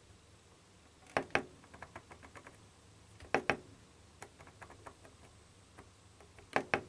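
Plastic button clicks on the Daikin Altherma heat pump's control panel as its settings menu is stepped through. There are three sharp double clicks, each a press and release, about a second, three and a half seconds and six and a half seconds in. Quicker, softer ticks follow the first two.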